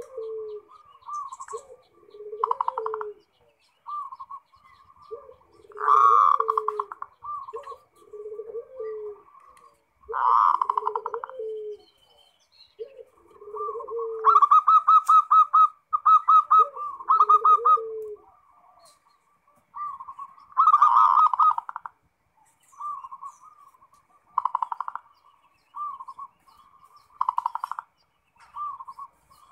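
Zebra dove (perkutut) cooing in repeated quick, pulsing phrases, loud and rhythmic. Deeper coos run underneath through roughly the first two-thirds, then stop.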